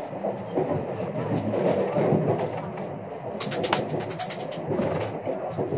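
Train running on the rails: a steady rumble with sharp wheel clicks and clatter, a burst of them in the middle, over a murmur of people's voices.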